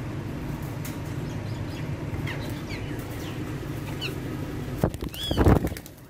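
Alexandrine parakeets giving a few short chirps, then near the end a loud burst of wing flapping with a squawk, over a steady low hum.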